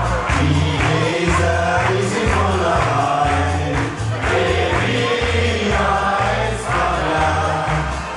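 A group singing a Spanish-style song with acoustic guitars, over a steady bass beat of about two pulses a second.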